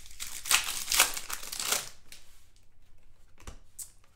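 Trading-card pack wrapper crinkling as it is handled and torn open, for about two seconds, followed by a couple of faint clicks.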